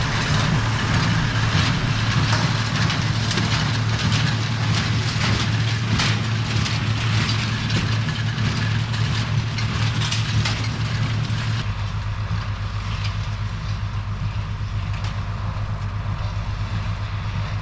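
Tractor engine running steadily while pulling a working small square baler, with dense mechanical clatter over the engine hum. About twelve seconds in the clatter thins out and a deeper low rumble takes over.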